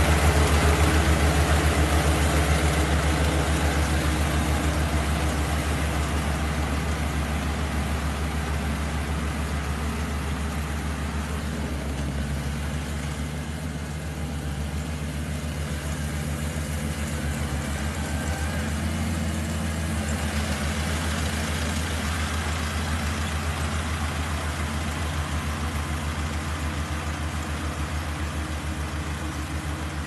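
Kubota SR40 mini combine harvester running steadily as it harvests rice, a continuous engine drone. It fades over the first half as the machine moves away, then holds at a steady level.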